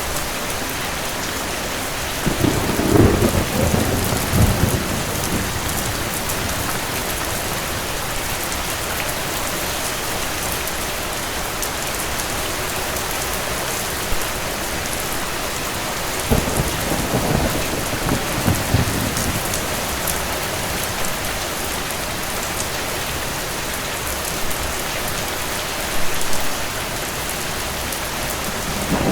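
Steady heavy rain hissing, with distant thunder rumbling twice: once a couple of seconds in and again past the middle, plus a short low rumble near the end.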